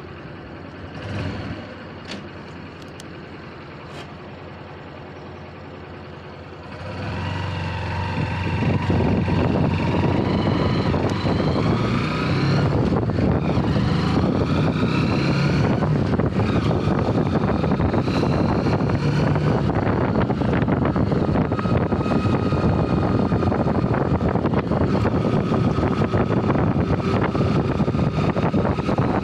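Motorcycle engine idling, then pulling away about seven seconds in. It revs up through several gears, the pitch climbing and dropping back at each change, then runs steadily at cruising speed.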